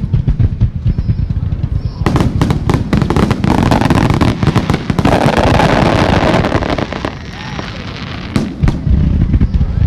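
Rapid-fire star mine fireworks barrage: aerial shells bursting in quick succession, with a dense crackling of bursting stars from about two seconds in until about seven seconds, then a brief lull before more booms near the end.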